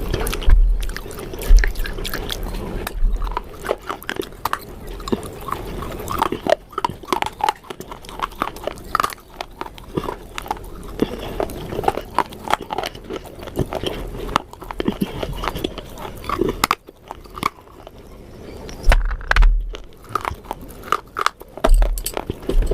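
A person biting and chewing crunchy food close to the microphone, with irregular crackling crunches and a few low thumps.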